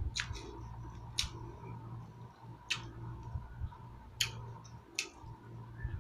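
Close-up eating sounds: short, sharp crackly clicks from chewing and mouth noises, about one a second, over a low steady hum.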